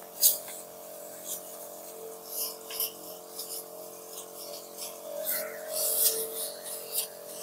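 A crop sprayer's wand misting the plants: a steady hum throughout with short hissing and rustling spurts, and a longer hiss from the nozzle about six seconds in.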